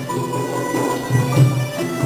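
Live southern Thai rong ngeng folk ensemble playing, with a melody of long held notes over a repeating beat of low drum strokes.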